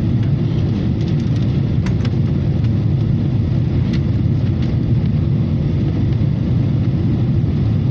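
Airliner cabin noise heard from inside the plane: the steady low drone of the engines and the air rushing past the fuselage, with a few faint ticks.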